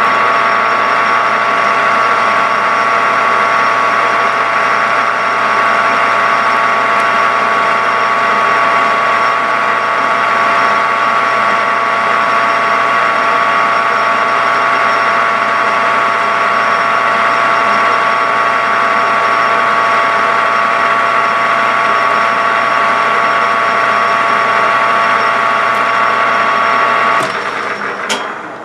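Metal lathe running steadily with a gear whine while the tool bit takes a light turning pass of about four thousandths along a metal piston. Near the end the lathe is switched off and winds down.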